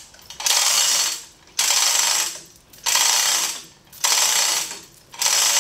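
Manual chain hoist being pulled hand over hand to lift the back of an inboard boat engine: the chain runs and clatters through the hoist's ratchet in repeated strokes about a second long, with short pauses between pulls.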